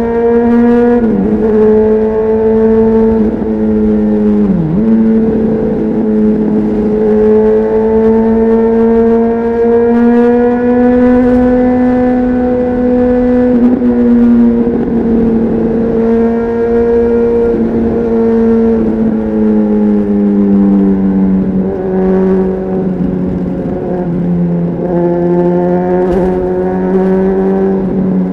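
Honda CBR600RR's inline-four engine running under way through an aftermarket Leo Vince exhaust, heard on board. It holds a fairly steady note with two brief sharp dips in the first few seconds, a slow rise in revs, then a gradual fall toward the end.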